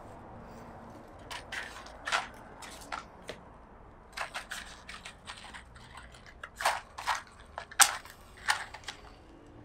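Matchbox being handled and opened and a match struck along its striker: a series of short, sharp scrapes and clicks, the loudest about eight seconds in.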